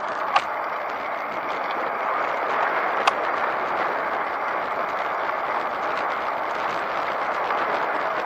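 Steady rush of wind on the microphone and tyre noise from a bicycle rolling along an asphalt road, with two sharp clicks, one about half a second in and one about three seconds in.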